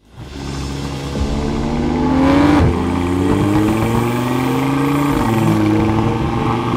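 Turbocharged sports sedan's engine pulling hard under acceleration. Its pitch climbs, drops sharply at an upshift about two and a half seconds in, climbs again and drops at a second upshift around five seconds in, then holds steady.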